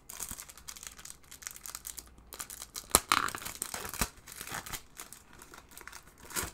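Clear plastic wrapping crinkling and tearing as a sealed packet is opened by hand. There is a sharp crack about three seconds in and another loud crackle near the end.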